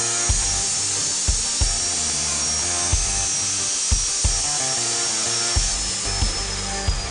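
Background music with a steady beat over the high, steady whine of a Bosch GCO 14-24 abrasive cut-off saw running. The whine drops slightly in pitch about six seconds in, as under cutting load.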